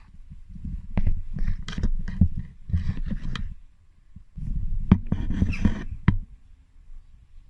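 Irregular knocks, clicks and scrapes in uneven clusters, like parts and tools being handled.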